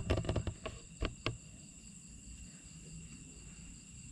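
Steady high-pitched chirring of night insects, typical of crickets, holding several fixed pitches throughout. Two sharp clicks come about a second in.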